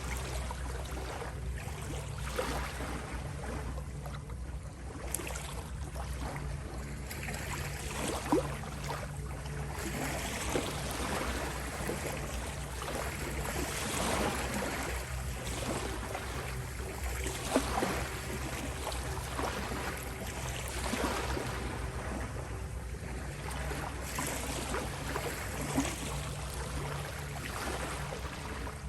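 Ocean waves washing in slow surges, swelling and ebbing every few seconds, with a few sharper splashes, over a steady low drone from the 528 Hz tone.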